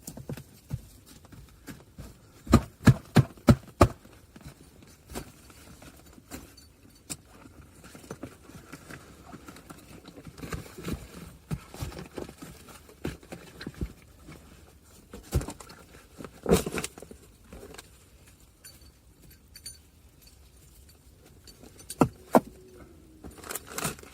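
Gear being handled: a quick run of about five sharp knocks or clinks a couple of seconds in, then scattered clicks and rustles, with further loud knocks near the middle and near the end.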